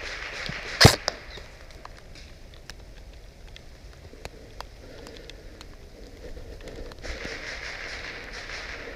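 A single loud, sharp snap about a second in, then scattered faint ticks and clicks, with a rustling hiss building from about seven seconds in.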